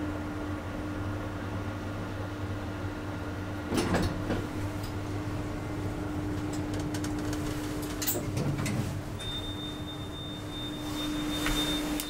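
1992 Schindler elevator arriving at a floor: a steady hum, a clunk about four seconds in and another around eight seconds in as the car stops and the sliding doors work, then a thin high whine from about nine seconds on.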